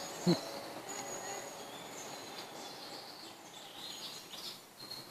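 Small birds chirping and singing, thin high whistled notes repeating over a faint outdoor hiss. A brief low sound falling in pitch stands out about a third of a second in.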